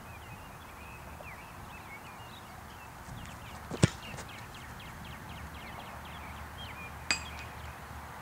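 A football kicked off a holder: a single sharp, loud thud of the foot striking the ball a little under four seconds in. About three seconds later comes a second, weaker click with a brief metallic ring.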